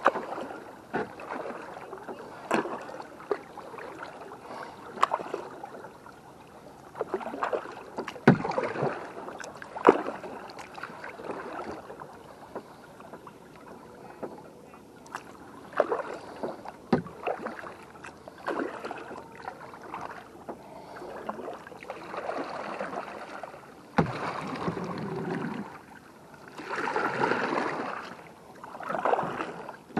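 Kayak paddle strokes in the water of a sit-in angler kayak, irregular swishes and splashes with occasional sharp knocks.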